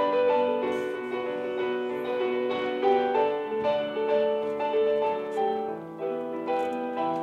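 Piano music: a melody of sustained, decaying notes.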